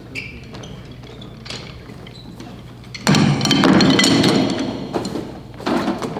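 Knocks, thumps and clinks of hard objects being handled, getting much louder and busier from about three seconds in.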